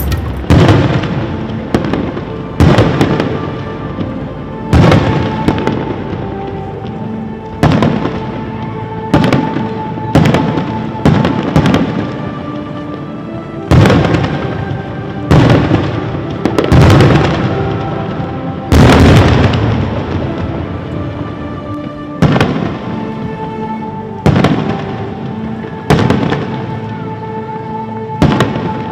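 Fireworks booms from an added sound effect rather than the real display. About one boom every one to two seconds, each dying away, over background music with sustained notes.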